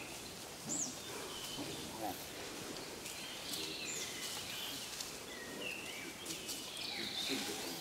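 Outdoor ambience: a steady hiss of background noise with a few short, high bird chirps scattered through it.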